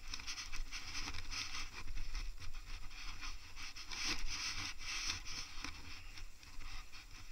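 Wind and tyre hiss from a mountain bike rolling fast on a wet paved lane, heard through an action camera, with a low rumble and small scratchy rattles throughout.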